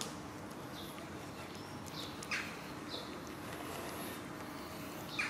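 Cats eating from a plastic tub, with faint chewing ticks. Two short, high, falling bird chirps stand out, about two seconds in and again near the end.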